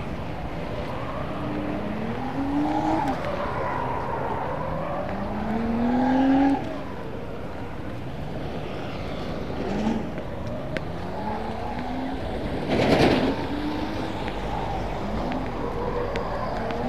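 Road traffic passing: vehicle engines accelerating one after another, their pitch rising several times over a steady traffic noise, with one brief louder rush late on.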